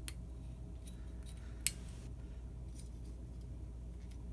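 A few sharp little clicks from handling a porcelain light socket and its metal pull-chain switch while working a piece loose. One click about one and a half seconds in is much louder than the rest. A steady low hum runs underneath.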